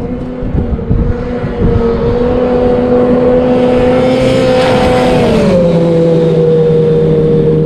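Snowmobile engine at high revs skimming across open water, growing louder as it nears, with a hiss of spray from about three seconds in. The engine pitch drops sharply at about five and a half seconds as the sled passes by.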